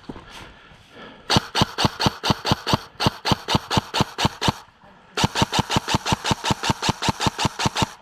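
Airsoft gun firing two long strings of rapid, evenly spaced shots, about six a second, with a short break just before the midpoint.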